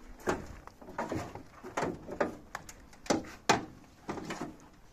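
Irregular knocks and taps, about eight in a few seconds, as a rubber fuel hose is handled and knocked about in a vehicle's engine bay.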